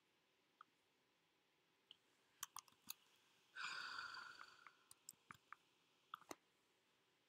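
Faint computer mouse clicks, a dozen or so scattered through the middle, as text is selected and a save dialog is worked. Midway comes a short breathy hiss that fades over about a second.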